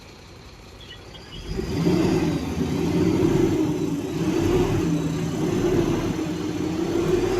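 Heavy diesel engine revving up about a second and a half in, then running loud under load, its pitch wavering slightly.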